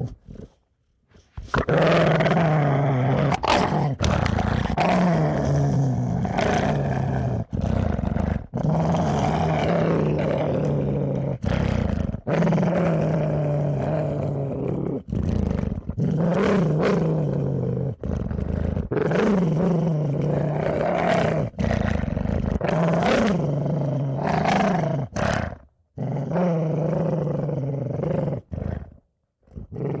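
A dog growling viciously in long, continuous growls. The growls are broken every few seconds by brief pauses, with a short silence about a second in and two more near the end.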